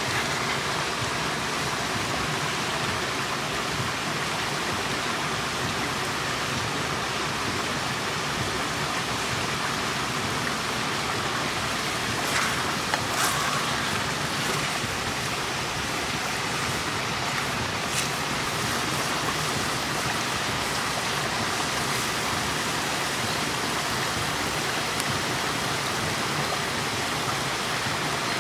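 Thick goulash simmering in a pot over a wood fire: a steady bubbling hiss, with a few sharp crackles from the fire, most of them around the middle.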